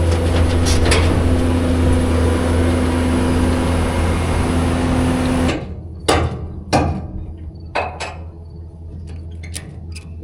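A steady engine hum that stops abruptly about halfway through, followed by a handful of sharp, separate knocks and clanks.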